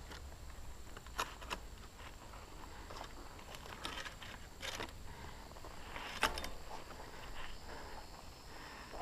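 A mountain bike on a dirt forest trail: irregular clicks, rattles and crunches of the bike and tyres over the ground, sharpest about a second in and again about six seconds in, over a low rumble and a faint steady high tone.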